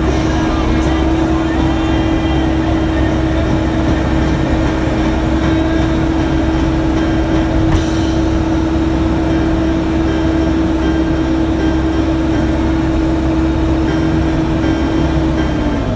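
Cat 420D backhoe loader's diesel engine running steadily under work, with a constant whine over the rumble. Near the end the whine dips slightly in pitch as the revs change.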